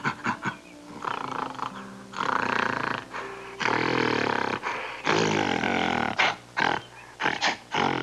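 Loud, harsh animal calls: a few short ones, then several long rasping roars through the middle, then short ones again, over background music.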